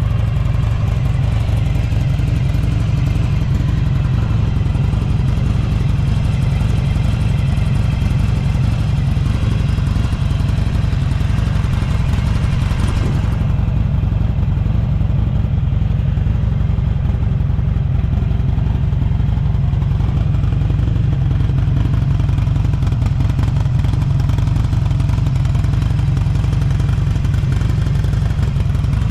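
Buell XB12SS Lightning's air-cooled 1203 cc V-twin idling steadily through a Strike Weapon aftermarket muffler, a deep rumble, running with no abnormal noises by the seller's account.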